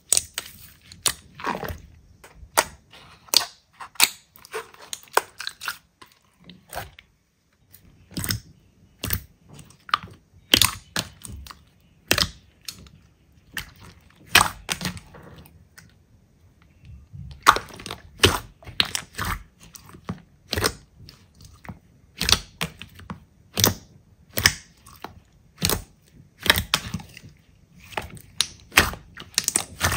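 Hands squeezing, pressing and poking slime, making irregular sharp pops, clicks and crackles a few times a second, with two brief lulls.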